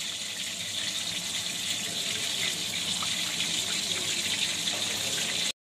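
A steady hiss with no clear pitch, mostly in the upper range, that cuts off abruptly just before the end.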